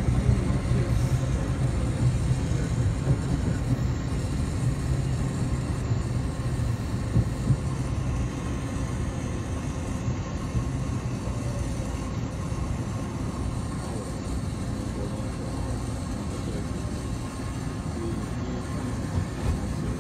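Taipei Metro C301 electric multiple-unit train running along the line with a steady low rumble, easing slightly in the second half.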